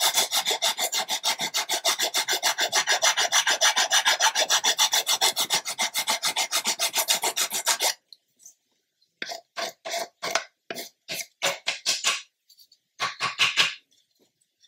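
Hand abrasive file scraping back and forth across the wooden planking of a model ship's hull, in fast, even strokes of about six a second. This is the final levelling and smoothing pass on the stern. About eight seconds in, the strokes turn slower and separate, about ten more in short spells.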